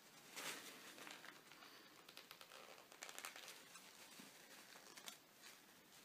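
Faint rustling and crinkling of hands handling materials, with a few light ticks, over near-silent room tone.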